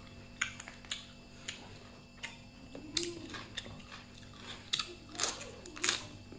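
A person chewing food, with about ten small sharp clicks and crunches scattered through it and a couple of faint low hums.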